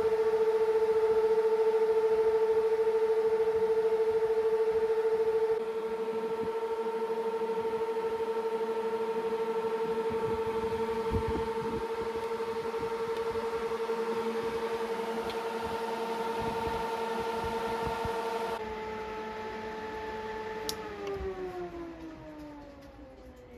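Twin electric radiator cooling fans running together with a steady high whine, then, after a click, winding down with a falling pitch near the end as they are switched off.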